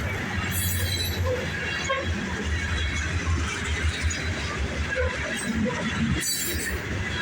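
Freight cars of a CSX grain train rolling past on a curve: a steady low rumble of wheels on rail, with brief high-pitched bursts about half a second in and again near the end, typical of wheel flange squeal on the curve.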